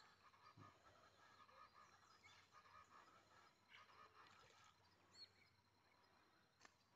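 Near silence, with faint, scattered bird calls from the riverside forest, including a short chirp about five seconds in.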